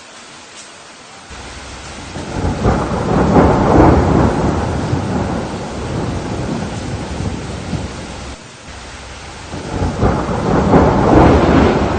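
Thunderstorm: steady heavy rain with two rolls of thunder, the first rumbling up about two seconds in and slowly fading, the second swelling again near the end.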